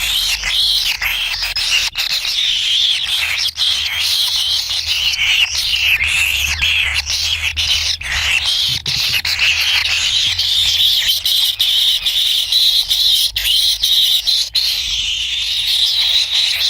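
Kingfisher chicks giving a continuous raspy begging chorus, with many short clicks mixed in.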